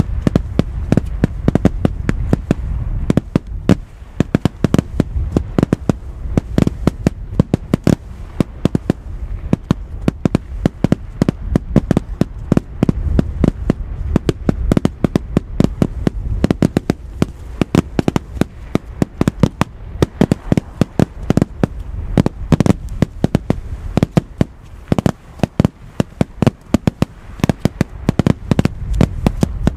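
Fireworks going off in rapid succession: a dense run of sharp bangs, several a second, over a steady low rumble.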